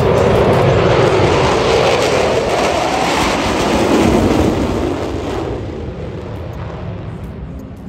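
Jet aircraft passing low and loud, a broad roar that holds for about four seconds and then fades away.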